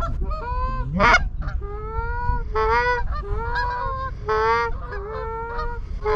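Canada goose honking: a quick run of repeated honks and clucks, overlapping, over a steady low wind rumble.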